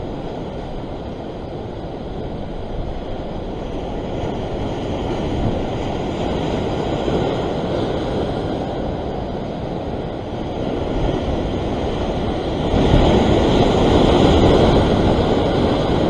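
Rough ocean swell surging and washing as foaming white water against a rock ledge. It is a continuous rush that swells up and is loudest about thirteen seconds in, as a bigger surge comes through.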